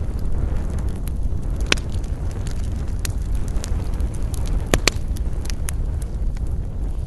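Wood campfire crackling and popping, with a sharp pop about two seconds in and two more in quick succession near five seconds, over a steady low rumble of wind.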